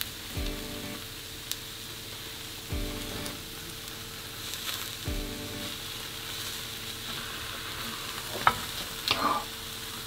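Beaten egg mixture with green onion and tuna sizzling steadily in oil in a square tamagoyaki pan. A plastic slotted spatula scrapes and taps against the pan a couple of times near the end.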